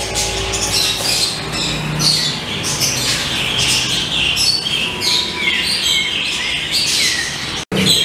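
Many small caged birds chirping and tweeting together in quick, high-pitched calls, briefly cutting out near the end.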